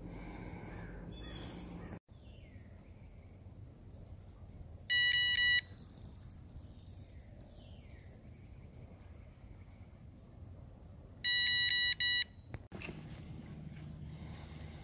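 Electronic fishing bite alarm beeping in two short bursts of rapid high-pitched beeps, the first about half a second long and the second about a second long with a brief break in it, several seconds apart.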